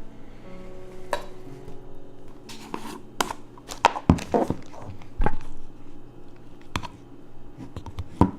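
A series of about eight sharp knocks and clatters at irregular intervals, some close together, with a low hum under them.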